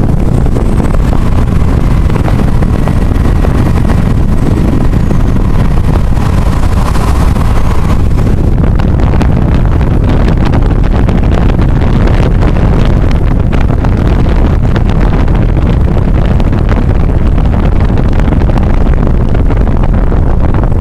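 Car driving at highway speed, a loud steady rumble of wind buffeting the microphone over tyre and road noise.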